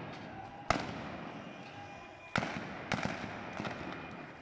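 Gunshots echoing along a city street: four single shots, irregularly spaced, the first about a second in and the loudest two about 1.7 seconds apart.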